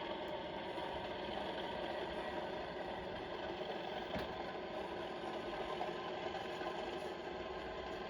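Model diesel locomotive's sound decoder playing a steady diesel engine sound through its small onboard speaker. A single sharp click about four seconds in.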